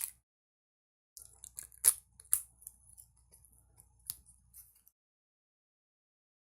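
Plastic shrink-wrap being worked off a small card box: a sharp click right at the start, then a run of crisp crinkling crackles from about a second in that stops just before five seconds.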